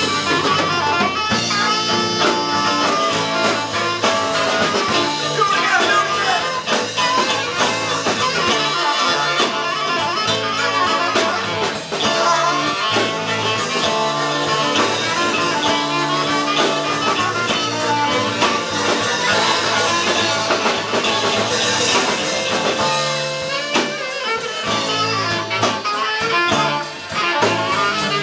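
Live band playing with saxophone, electric guitar, violin and drum kit.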